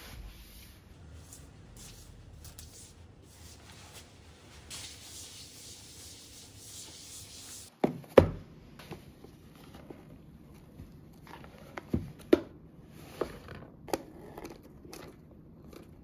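Hand rubbing and wiping across a tiled floor, a steady scuffing that grows louder and then stops abruptly. Then a kraft cardboard box is set down and handled on a countertop, giving a handful of sharp knocks; the loudest comes about eight seconds in.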